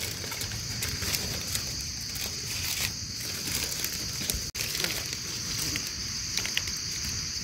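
Steady high-pitched drone of forest insects, with repeated brief crackles of dry leaf litter being disturbed.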